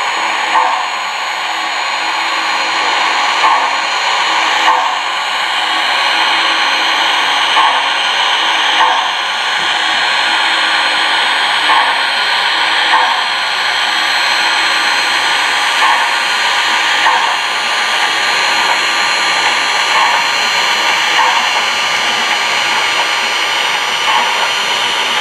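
Steam locomotive sound effects from the Proto-Sound 3.0 sound system of an MTH HO 2-8-8-4 Yellowstone model, played through the model's small speaker: a steady steam hiss with a pair of short sounds, about a second apart, repeating about every four seconds.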